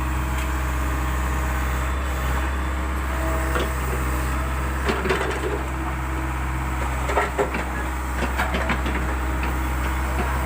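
Diesel engine of a JCB backhoe loader running steadily at constant speed, with scattered sharp knocks and cracks about five seconds in and again between seven and nine seconds.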